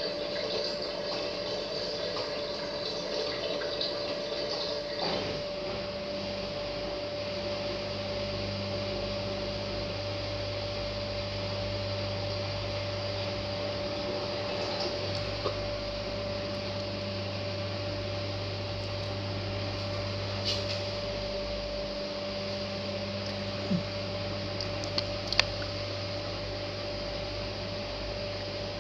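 Hotpoint front-loading washing machine between the end of its wash and the first rinse: water sloshing and running through the drum, with a steady low mains-type hum from the machine coming in about five seconds in. A few light clicks sound near the end.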